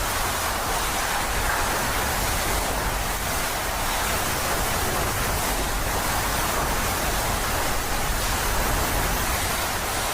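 Storm wind and driving rain in a hurricane, a loud steady roar with a low rumble beneath.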